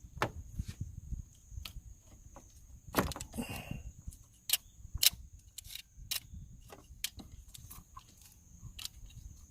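Irregular clicks and knocks of hand tools and metal parts being handled during a thermostat replacement on a Suzuki Jimny engine, with a short scraping rustle about three seconds in. A faint steady high tone sits under it all.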